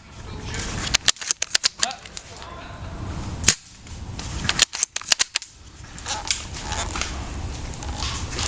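Airsoft guns firing: a quick run of sharp cracks about a second in, a single louder crack midway, and another short run a second later.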